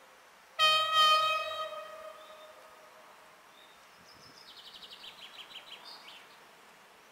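Electric locomotive's air horn giving one blast, the Polish RP1 'Attention' warning signal from an approaching EP07, starting suddenly and fading away over a second or two. A little later a songbird sings a short descending trill that ends in a flourish.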